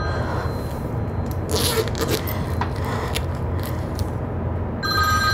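Mobile phone ringing with a steady two-tone trill that stops just after the start, then rustling, scraping and a few clicks as the phone is handled. The ringing starts again near the end. A steady low drone of a ferry's engines lies underneath.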